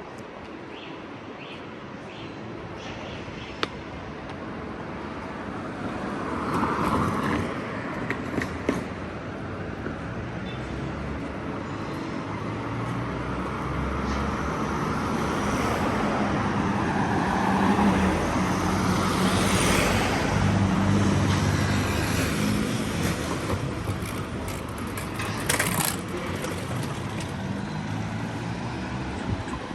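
Urban street sound dominated by a passing vehicle, growing louder to a peak about two-thirds of the way through and then fading, with a few sharp clicks along the way.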